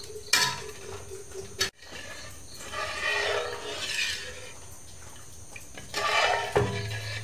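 Metal ladle stirring rice batter in a steel wok on the stove, scraping against the pan in repeated strokes as the batter cooks and thickens. A clack comes about a third of a second in, and the sound breaks off abruptly once, before two seconds.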